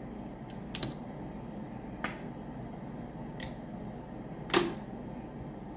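Crab and crawfish shells being cracked and pulled apart by hand, about five sharp snaps spread over the seconds, the loudest near the end, over a steady low hiss.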